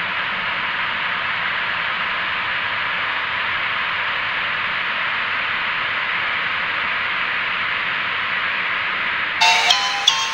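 Steady TV static hiss, as from a lost cable signal. About nine seconds in, a melody of short, bright struck notes cuts in over it.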